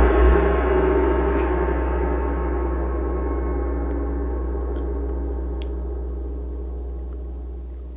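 A deep, gong-like resonant hit in the soundtrack ringing on and dying away slowly, its low hum fading out at the very end.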